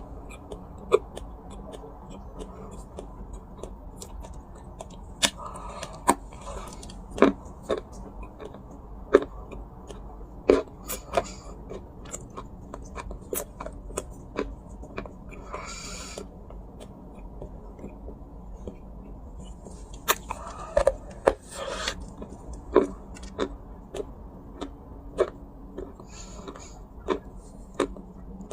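Dry clay crunching: irregular sharp cracks and snaps, a few of them loud, with several short crumbling rustles between them.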